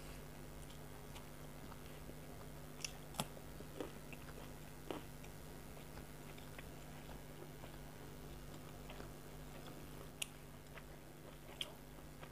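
Close-up mouth sounds of someone chewing a fried fish-roe fritter and green chilli, with a handful of sharp crunchy clicks scattered through it, the loudest about three seconds in. A steady low hum runs underneath.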